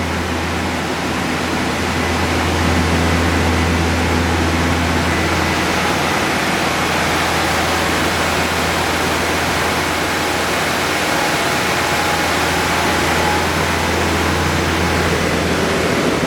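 Timesavers 2300 series three-head 43-inch wide belt sander running empty, with its sanding heads spinning and the conveyor jogged at its fastest speed. It makes a loud, steady rushing noise over a low hum.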